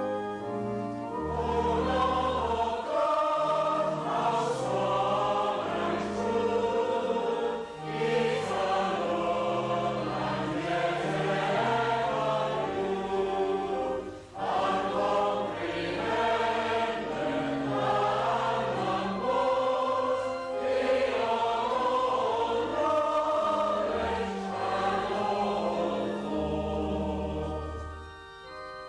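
Church choir singing a hymn in parts, accompanied by organ, with a short breath between phrases about halfway through.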